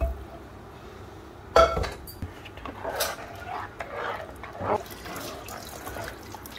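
Steel ladle stirring thick lentil stew in a pan and knocking against the pan, a sharp knock about a second and a half in and lighter ones later, with water poured in from a glass jug.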